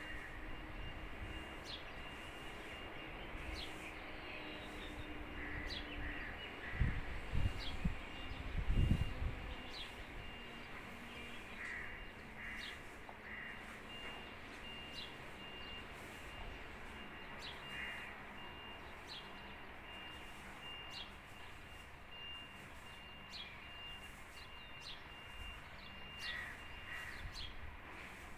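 Birds calling: short high chirps repeating every second or so, and harsh calls in groups of two or three, over a steady background hiss. A low rumble comes and goes about seven to nine seconds in.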